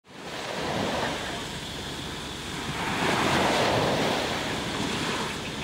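Sea surf washing onto a sandy beach, with wind buffeting the microphone; the wash swells louder about three seconds in.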